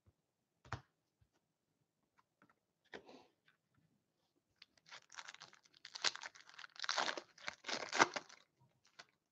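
Foil trading-card pack wrapper being torn open and crinkled by hand, a run of crackling from about five seconds in to just past eight. A single light tap comes just under a second in.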